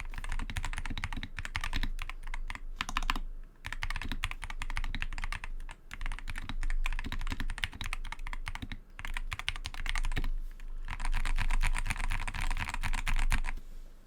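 Typing on an Epomaker SK61 mechanical keyboard with lubed Gateron optical green (clicky) switches: rapid runs of keystroke clicks, with short pauses, and a faster, denser burst of keystrokes about eleven seconds in.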